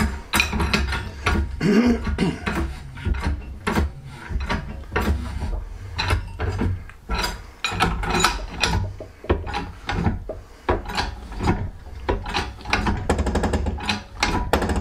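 Hydraulic shop press being hand-pumped to load up and press apart a two-stroke motorcycle crankshaft web: a run of sharp metallic clicks and rasping strokes, about one to two a second, over a low hum.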